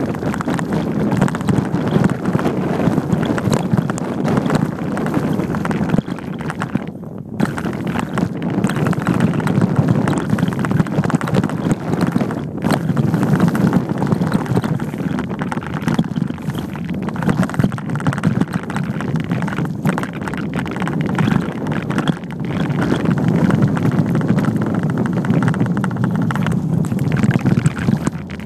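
Loud wind noise on a handlebar-mounted camera's microphone as a mountain bike rides fast downhill, mixed with the bike rattling and knocking over a rough dirt trail.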